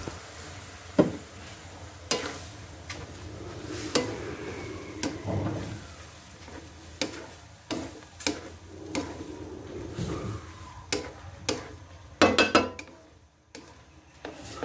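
A wooden spatula knocking and scraping against a metal wok as it stirs chopped pork lung frying in a little liquid, over a faint sizzle. The knocks come irregularly, about once or twice a second, with a quick run of clatter near the end.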